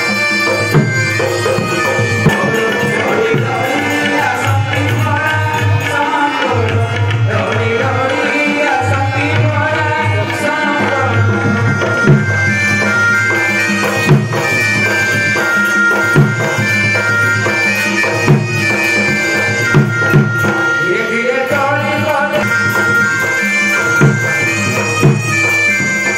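Live folk music for a Danda Nacha dance: a two-headed barrel drum beaten in a steady rhythm, with a sharper accented stroke about every two seconds. Over it a wind instrument plays a melody with long held high notes.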